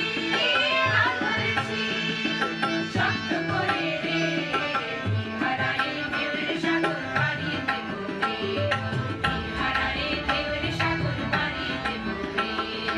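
A group of women singing a song in chorus with a steady drum accompaniment.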